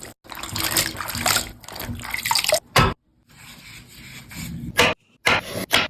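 Water running and dripping, with a few short clicks. It is chopped off abruptly several times, where the clips are cut together.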